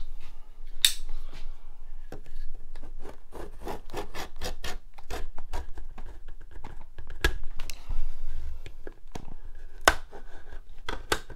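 A razor-blade scraper scoring the paint along the edge of a painted door's window-frame trim, in a long run of short scratching strokes. The scoring breaks the paint seal so the frame can be loosened. A sharp click sounds about a second in and another near the end.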